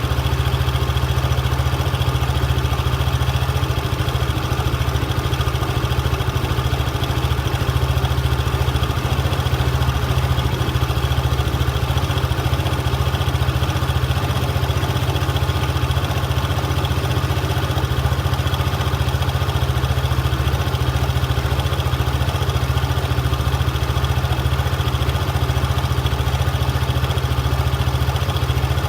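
Vehicle engine idling steadily, carrying an abnormal noise from the drivetrain (transmission) that the owner is recording as a fault.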